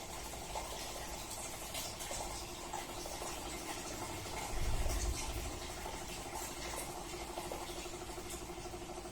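Sanyo top-loading pulsator washing machine in its spin cycle: the tub spinning with a steady motor hum and a watery rush, and a low rumble swelling for about a second midway.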